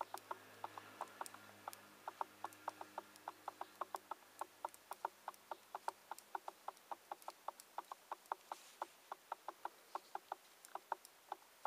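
Metal knitting needles clicking against each other as stitches are knitted by hand: light, quick, regular clicks, about four a second.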